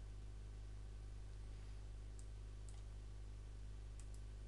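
A few clicks of a computer mouse, about two seconds in and again near the end, over a steady low electrical hum.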